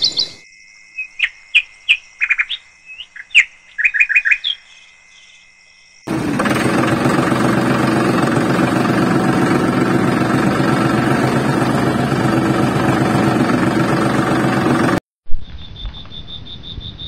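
Birds chirping in short bursts for the first few seconds. Then a tractor engine runs steadily at an even, rapid pulse for about nine seconds and cuts off suddenly, followed by a faint high steady whine.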